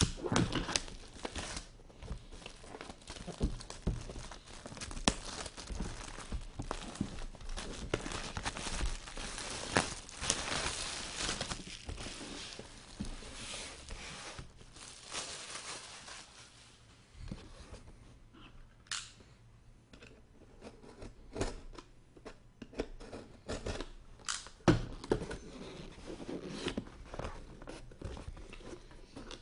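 Wrapping being torn and crinkled off a cardboard hobby box for about the first sixteen seconds. After that come scattered cardboard rustles and light knocks as the box is opened, with one sharper knock about 25 seconds in.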